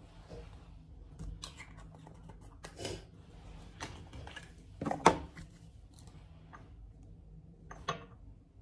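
Scattered clicks, taps and rustles of makeup containers being handled on a vanity counter, with a sharper knock about five seconds in.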